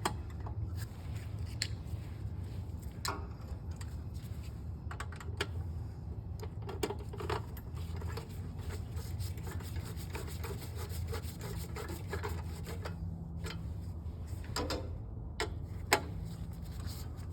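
Hand tools working bolts on a snowblower: scattered metal clicks and scrapes at irregular intervals, over a steady low hum.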